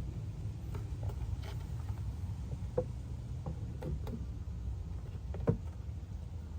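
Scattered light knocks and taps of a beehive roof being set in place over the boxes, the sharpest about five and a half seconds in, over a steady low rumble.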